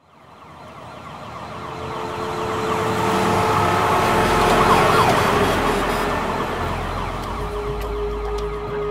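City traffic noise fading up from silence, with siren-like wailing tones gliding up and down over it. It grows loudest about halfway through, then eases slightly.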